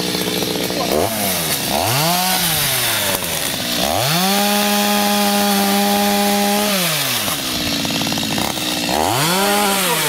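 Two-stroke chainsaw revving from idle three times: a short rev up and down, then held at full speed for about three seconds, then another short rev near the end.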